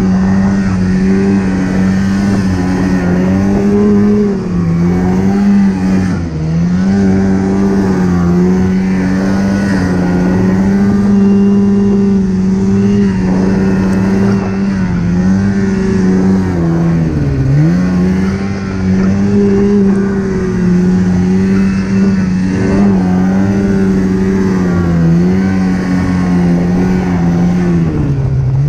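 Snowmobile engine running hard at a steady pitch, dipping briefly and climbing back again and again as the throttle eases off and opens up, with one deeper drop about two-thirds of the way through.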